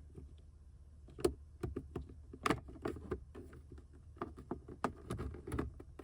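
Plastic clicks and taps as a flathead screwdriver pries at a glove box and its trim, irregular, with two sharper knocks about one and two and a half seconds in.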